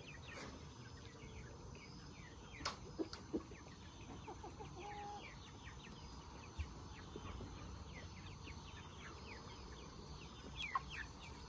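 A flock of chickens, young Red Ranger meat birds among them, peeping and clucking, with many short falling chirps throughout and a few sharp clicks.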